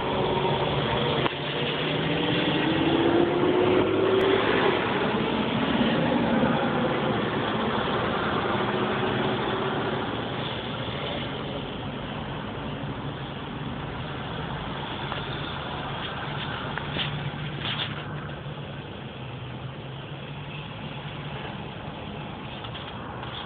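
Car engine and road noise heard from inside the cabin as the car creeps and idles in slow traffic. An engine tone rises briefly a few seconds in, and after about ten seconds the sound settles into a quieter, steady hum.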